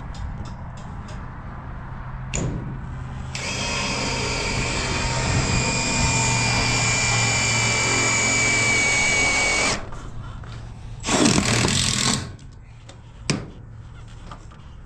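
Cordless drill/driver running at a steady pitch for about six seconds as it bites into a camper's aluminum edge trim, its whine dropping slightly as it stops. A second, shorter burst follows about a second later.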